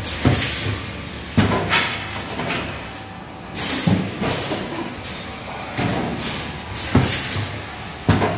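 REI 22VGF cup filling and sealing machine running its cycle: repeated clunks of its pneumatic actuators, each with a short sharp hiss of exhausting air, every second or so over a steady mechanical running sound.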